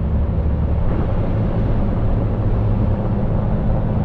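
A car driving: a steady low engine and road rumble that stays even throughout.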